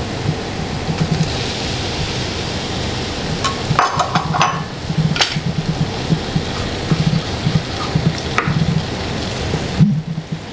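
Crushed garlic and shallots frying in olive oil on low heat in a non-stick pan, a steady sizzle. Chopped tomato pieces drop into the pan with a few knocks a little before halfway, and a wooden spatula stirs the pan.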